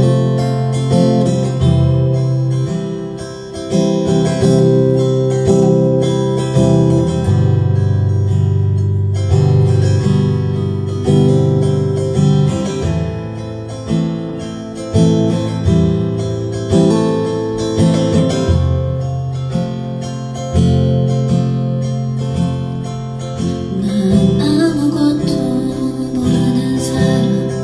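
Solo acoustic guitar, strummed and picked with an even pulse as an instrumental passage; a woman's singing voice comes in near the end.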